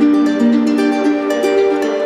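Background music: an instrumental melody on plucked strings.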